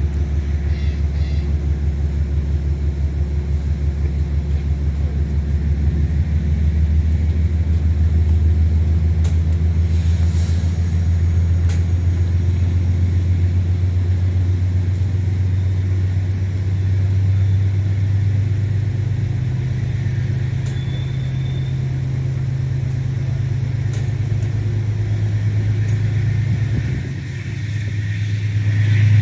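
Diesel locomotive engine running with a deep, steady hum. Its pitch steps up twice as the throttle is raised, and it dips briefly near the end.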